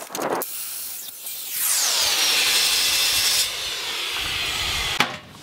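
Small corded circular saw cutting through rolled aluminium sheet: a brief cut right at the start, then about a second and a half in the blade bites with a falling whine that settles into a steady, loud, high-pitched cut. The cut stops about three and a half seconds in as the offcut comes free, the saw runs on more quietly, and a click comes near the end.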